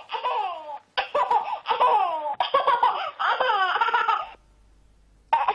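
A young girl laughing and giggling in a high voice, in several bursts with falling pitch, breaking off for about a second near the end.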